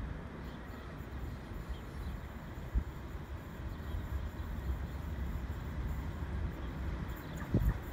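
Distant Colas Class 37 diesel locomotives (English Electric V12 engines) approaching, heard as a steady low rumble. Wind on the microphone adds a couple of brief low thumps, the louder one near the end.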